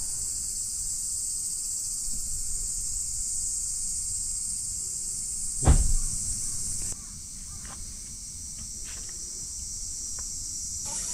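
Steady high-pitched drone of insects, with a single loud thump of a vehicle door shutting about halfway through. The insect drone gets quieter a second later, and a few faint ticks follow.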